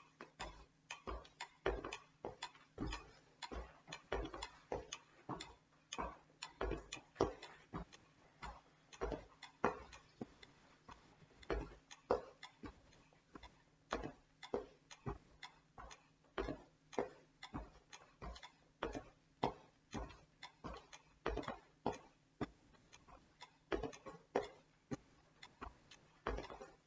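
Metronome ticking steadily at 120 beats per minute, about two ticks a second, pacing a Harvard step test, mixed with the thuds of sneakered feet stepping up onto and down off a wooden bench.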